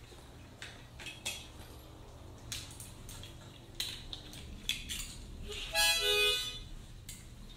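Metal clicks and clinks as a harmonica is fitted into its neck holder and adjusted, then a short harmonica chord blown about six seconds in.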